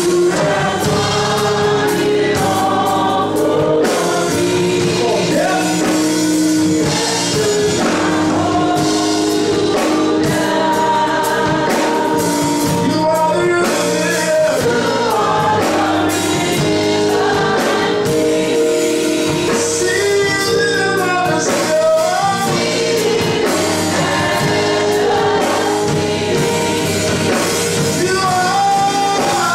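Gospel choir singing a song with held notes, backed by the church band.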